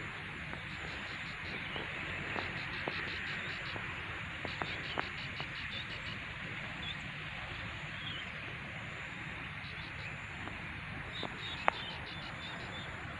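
Open-field ambience: a steady hiss with repeated short bursts of fast, high chirping trills from small wildlife, and a few scattered clicks.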